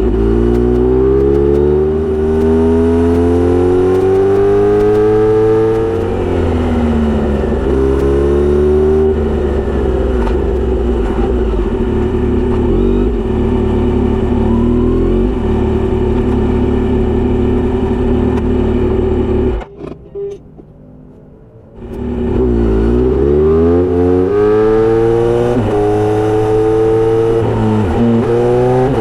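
Kawasaki Z900RS inline-four through a Misty Kintaro short straight-pipe exhaust with a 70 mm silencer, under way: revs climb and drop back through repeated gear changes, hold steady for a stretch, and briefly fall quiet about twenty seconds in before climbing again.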